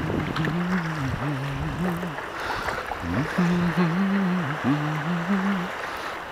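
A person humming a slow tune in low held notes, two phrases with a short break between them, over a steady hiss of wind and water.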